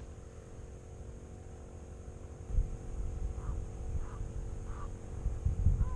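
Steady electrical hum with a low, wind-like rumble on the microphone that grows louder about two and a half seconds in. A few faint short chirps sound over it.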